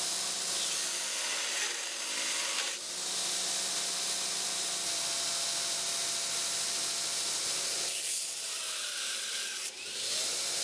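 Belt grinder running while a small Damascus steel habaki is pressed against the abrasive belt, a steady grinding hiss with a brief dip about three seconds in and another near the end.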